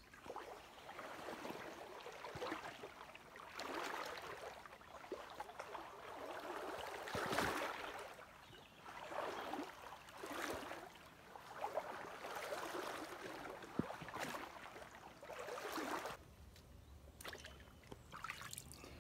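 Shallow river water swishing and trickling, swelling and fading every second or two, with one sharp click about two-thirds of the way through.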